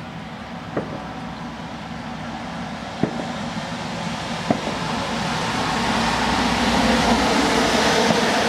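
Fireworks display: a few sharp bangs of shells bursting, about one, three and four and a half seconds in, over a dense rushing crackle from falling glitter stars that keeps growing louder.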